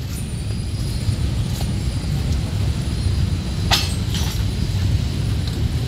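Steady low rumble of road traffic, with a few sharp clicks and knocks from pressure-washer parts being handled, the loudest about two thirds of the way through.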